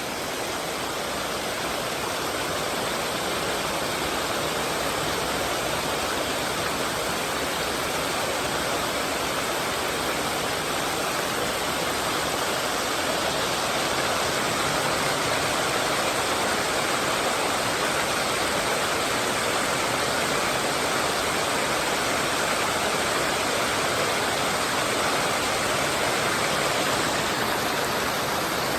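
Mountain stream water rushing steadily, a constant even hiss of flowing water.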